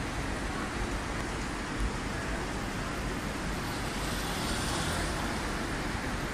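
Steady running noise of an automatic tubular fabric spreading machine travelling along a cutting table, blended with the airflow noise of wall-mounted fans.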